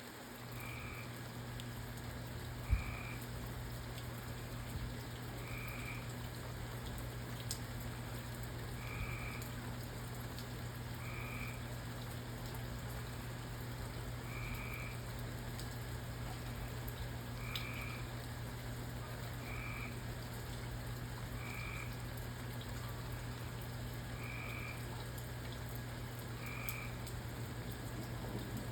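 A frog croaking: short two-toned calls repeated every one to three seconds over a steady hiss of rain and a low hum, with a single thump about three seconds in.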